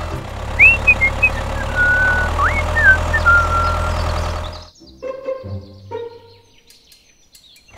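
Mini tractor's engine running with a steady low hum while birds chirp over it. The hum cuts off about four and a half seconds in, leaving a few faint clicks and knocks.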